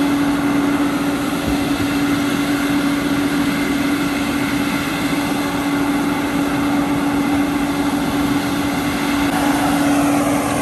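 Applied Aquablaster 100 l Extreme wet-blasting unit running steadily: a constant machine hum with one unchanging pitch over a broad hiss, swelling slightly near the end.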